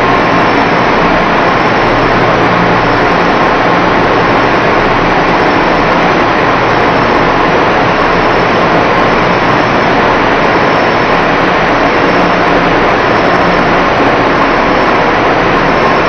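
Steady, loud machinery din of a textile dyeing plant: a continuous noisy hum with faint steady tones underneath and no distinct knocks or changes.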